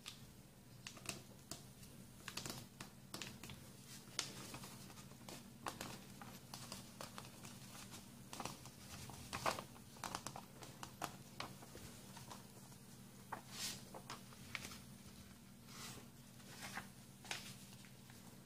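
A sheet of paper being folded and creased by hand into a paper airplane: faint, irregular rustles and crinkles as the folds are pressed down, over a steady low hum.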